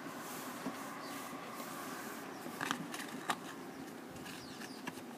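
Quiet room tone with a few light clicks and taps from a clear plastic coin capsule being handled and fitted into a velvet display box, mostly a little before the middle.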